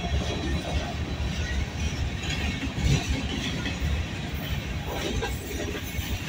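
Freight train of covered hopper cars rolling past, the steady noise of its wheels on the rails.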